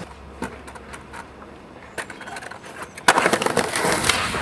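Skateboard on concrete: a few light clacks, then about three seconds in a sharp clack as the board meets the ground, followed by loud wheel roll over the rough concrete bank with further sharp clacks.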